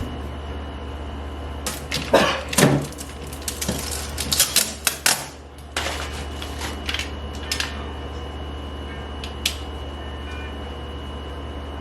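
A run of irregular clicks, taps and knocks, like hard objects being handled, over a steady low hum. The knocking is busiest from about two to six seconds in and thins out after about eight seconds.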